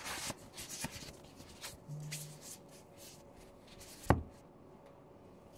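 Soft rustling and crinkling of a thin white foam packing sheet as gloved hands fold it around an object, busiest in the first second or so and then sparser. A single sharp tap about four seconds in is the loudest sound.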